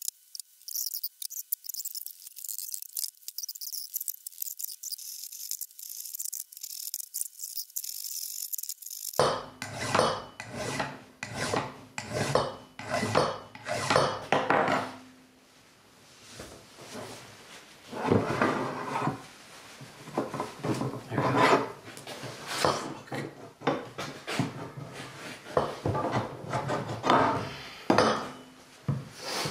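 Repeated rasping, rubbing strokes of metal on metal as the snowblower's auger gearbox shaft and its coupling yoke are worked by hand, starting about nine seconds in and coming in two runs with a short pause between. Before that there is only a thin high hiss.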